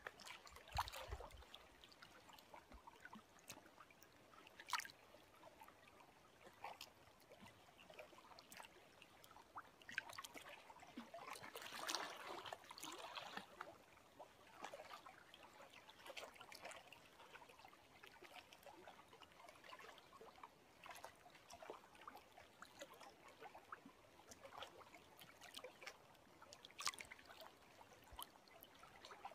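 Faint small lake waves lapping and trickling, with scattered little splashes and a busier patch of splashing about twelve seconds in.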